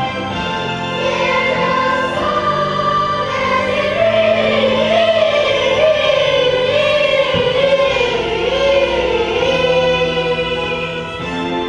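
A children's choir singing a song with instrumental accompaniment.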